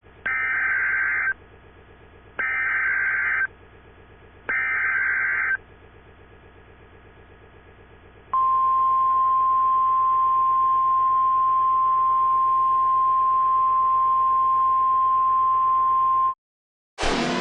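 Emergency Alert System header: three one-second bursts of warbling data tones, then a steady attention tone held for about eight seconds. A siren starts up just at the end.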